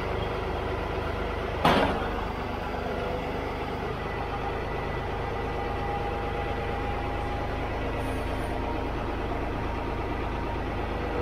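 Farm tractor's engine running steadily while it carries a load on its loader forks, with one sharp clank about two seconds in.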